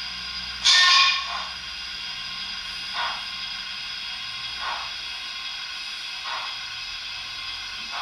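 Sound decoder in a Hornby OO gauge Princess Coronation Pacific model playing steam locomotive sound through its small speaker as the model creeps along. A steady hiss runs under a soft chuff about every second and a half, with a louder burst of steam about a second in.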